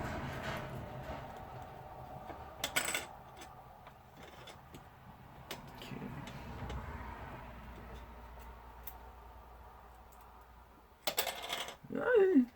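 Small metal parts and tools being handled during a drone repair: scattered light clicks and clinks, a short cluster of them about three seconds in, and a brief louder clatter near the end.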